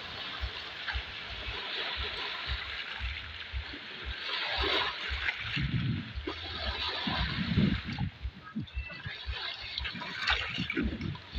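Small lake waves washing in and breaking over rocks at the shoreline, a steady splashing wash that swells about every three seconds as each wave comes in.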